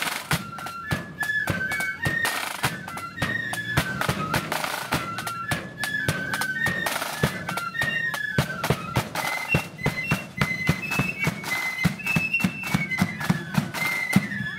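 Blood-and-thunder marching flute band playing: flutes carry a quick melody in unison over rapid snare drum beating and heavy bass drum strokes.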